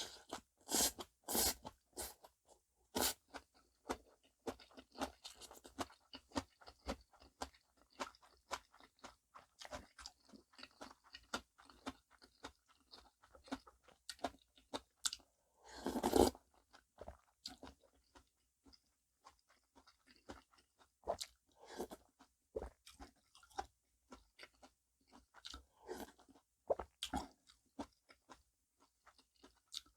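Close-miked chewing and crunching of bibimbap with seasoned vegetables, a steady run of short wet crunches and mouth clicks, with one louder, longer sound about halfway through.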